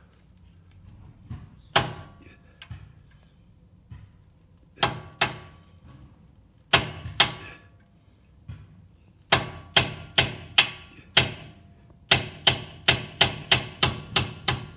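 Hammer tapping a steel punch to drive out the rear brake caliper's pad retaining pins: sharp metal-on-metal strikes, each with a brief ringing tone. A few spaced taps come first, then a steady run of about two taps a second near the end.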